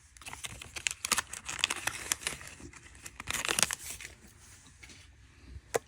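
Plastic packaging crinkling and tearing in irregular bursts as a small flashlight is unwrapped, with a sharp click near the end.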